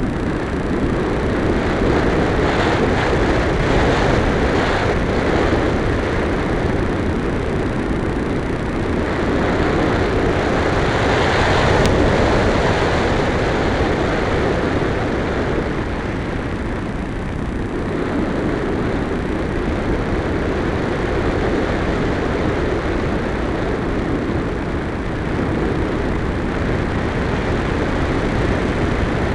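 Airflow rushing over the onboard camera's microphone on an RC glider in flight: a steady, loud noisy rush that swells and eases a little, with no clear motor whine.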